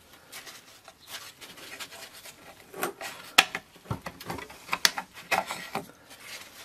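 Classic Mini rear drum brake shoes being worked off their lower anchor by gloved hands: irregular metal scraping and rubbing against the rusty backplate, with a few sharp clicks, the loudest about three and a half seconds in.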